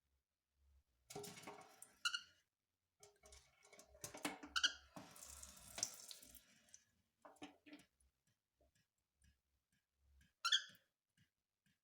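A cockatiel giving three short chirps: one about two seconds in, one a little before the midpoint and one near the end. Between them come faint bursts of scratchy, splashy noise.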